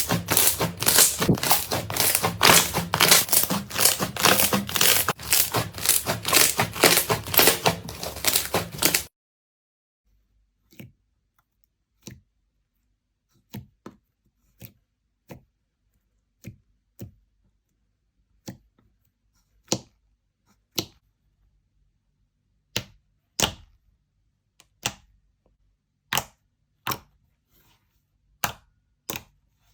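Crunchy slime being squeezed and pressed, crackling densely for about nine seconds. Then it cuts to single sharp pops and snaps, about one a second at first and closer together near the end.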